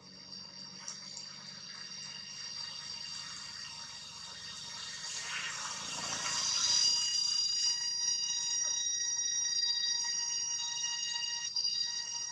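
A steady, high-pitched insect drone made of several even tones, swelling louder about six seconds in, with a brief rustle just before it swells.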